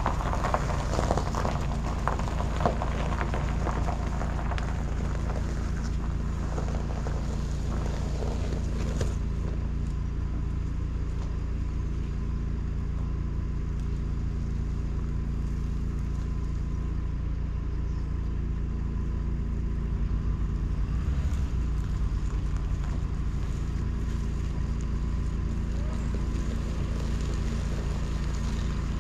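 An engine running steadily at an even speed. For the first nine seconds or so it is joined by clattering and knocking.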